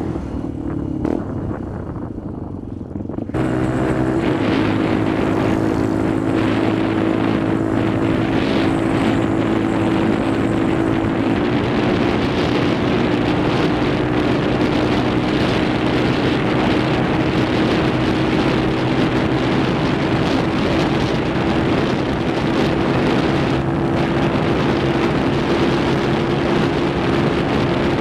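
Benelli TNT 125's single-cylinder engine running on the move, heard from a helmet camera. It is quieter at first, then about three seconds in it jumps abruptly to a steady cruising engine note under heavy wind rush on the microphone.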